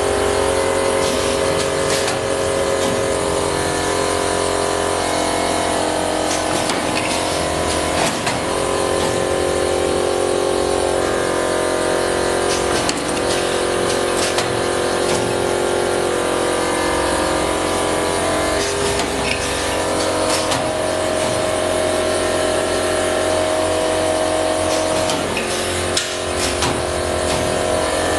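PLC-controlled automatic lathe running steadily, a constant machine hum with a few sharp clicks along the way.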